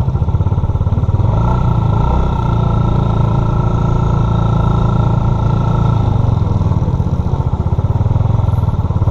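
Small motor scooter ridden at steady speed, its engine and the rush of riding air running together as a loud, fluttering low rumble. A thin, steady high whine sounds from about one and a half to six seconds in.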